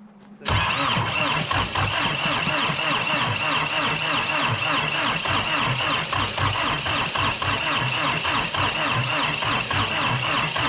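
Old tractor diesel engine cranked over on its starter in freezing cold, starting suddenly about half a second in. It turns over with rapid regular pulses under a steady high whine and puffs smoke from the exhaust stack: a cold-start attempt on a frozen engine that has just stalled.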